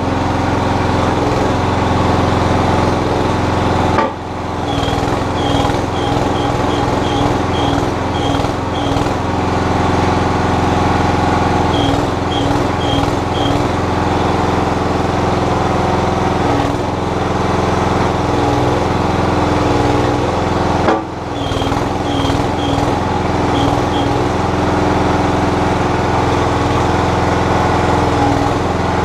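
Terramite compact backhoe's engine running steadily while its hydraulics are worked, with two abrupt breaks in the sound about 4 and 21 seconds in. Short high chirps come and go over the engine.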